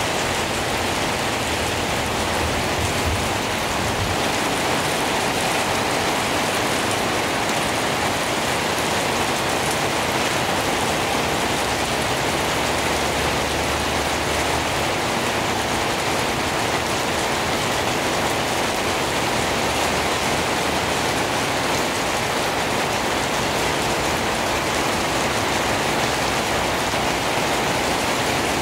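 Steady rain falling on the broad leaves of banana plants and garden foliage, an even, unbroken patter.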